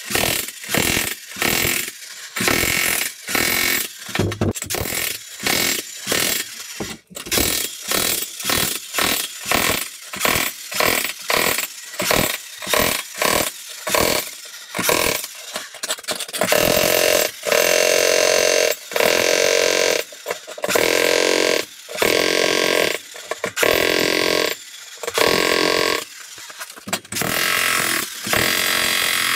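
Jackhammer breaking up a concrete floor slab, run in short bursts about twice a second for the first half, then in longer bursts of a second or more with brief pauses between them.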